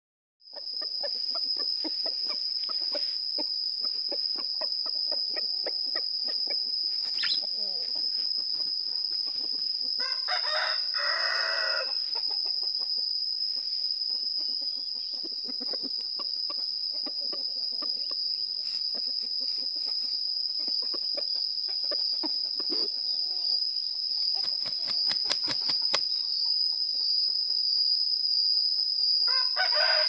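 A rooster crowing, once about ten seconds in and again near the end, each crow lasting about two seconds. A steady high-pitched insect drone runs underneath.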